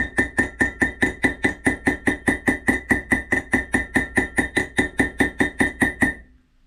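Hammer tapping rapidly on a tool set in an Opel Admiral B wheel hub with its brake disc, about five strikes a second, each one ringing like struck steel; the strikes stop about six seconds in. The blows are knocking out the remains of the old wheel bearing from the hub.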